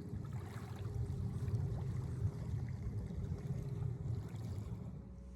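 Wind buffeting the microphone outdoors: an unsteady low rumble with a faint steady hum above it, easing and turning steadier about five seconds in.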